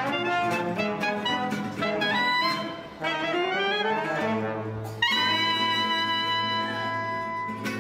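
Small band of clarinet, saxophone, trombone and acoustic guitars playing a jazzy tune: quick notes, a rising run of notes, then a chord struck about five seconds in that is held and fades near the end.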